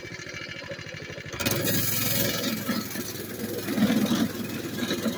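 Mini bike's small engine running as it rides a rough trail, growing louder about a second and a half in.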